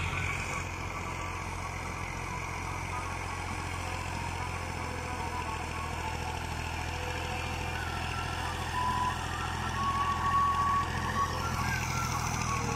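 Massey Ferguson MF240 tractor's three-cylinder diesel engine running steadily under load as it drags a rear blade through loose soil, growing louder over the last few seconds as it comes closer.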